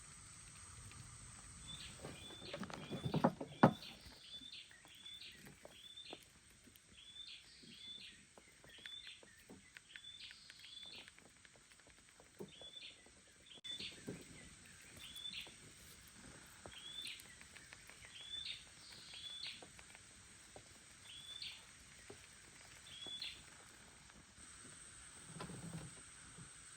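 A bird calling over and over with short, high, sharp chirps, one or two a second, over faint outdoor background noise. A few knocks and clicks about three seconds in, the loudest a single sharp knock.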